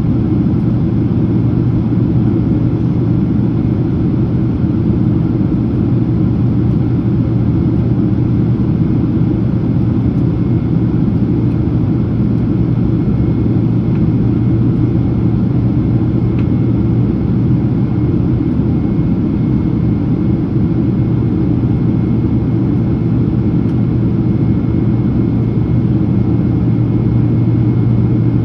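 Steady low cabin rumble inside a Boeing 767-300ER in descent: engine and airflow noise heard from a passenger seat, an even drone with a strong low hum.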